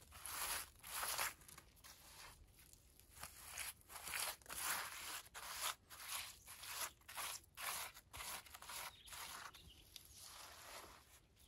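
A gloved hand pressing and smearing wet clay onto an earthen wall: a run of uneven scraping and rubbing strokes.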